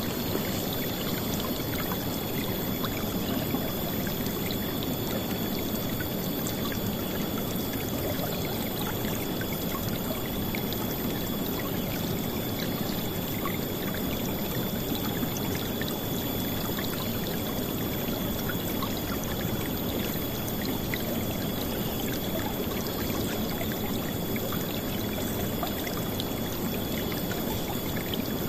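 River water flowing in a steady, unbroken rush, strongest in the low range.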